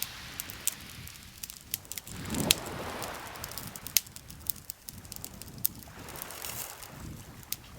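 Wood campfire crackling, with frequent sharp pops, the loudest about two and a half and four seconds in, over a soft rushing background that swells twice.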